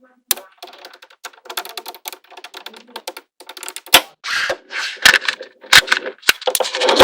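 Small magnetic balls clicking and snapping together as they are handled and assembled. Irregular sharp clicks, sometimes in quick rattling clusters, with a few louder snaps about four and five seconds in.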